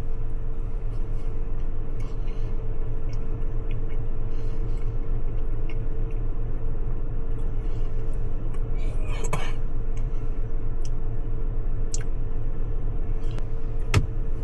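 A person quietly eating a soft cookie over a steady low hum, with a few short clicks and mouth sounds, the sharpest about nine seconds in and near the end.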